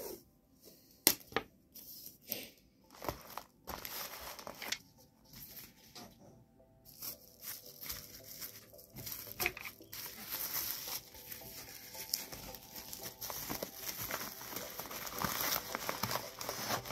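Short, sharp rasps of paper tape being pulled off its roll and torn. About seven seconds in, these give way to a near-continuous crinkling of a plastic bubble-wrap bag and a paper mailer being handled.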